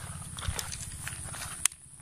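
Footsteps and handling noise of an angler moving along a muddy bank with a spinning rod, with a sharp click about a second and a half in.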